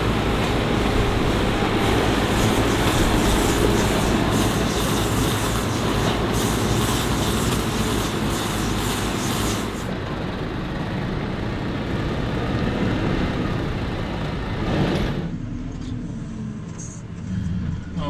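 Farm tractor and machinery running, a loud dense mechanical noise over a steady low engine hum. About fifteen seconds in it changes abruptly to a quieter, steadier engine sound.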